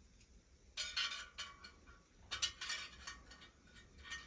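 A fresh straight-pull steel spoke clinking and rattling against the wheel's other spokes as it is fed into place. The clinks come in two short clusters, about a second in and again about two and a half seconds in, with one more click near the end.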